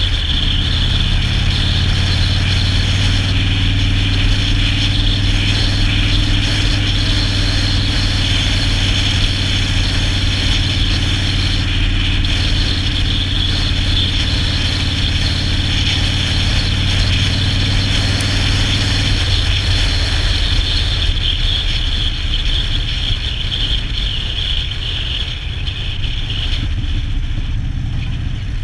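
2012 Harley-Davidson Dyna Street Bob's V-twin running at a steady cruise through its Vance & Hines 2-into-2 exhaust and Screamin' Eagle Heavy Breather intake, heard from the saddle with road and wind noise over it. The engine note changes about two-thirds of the way through.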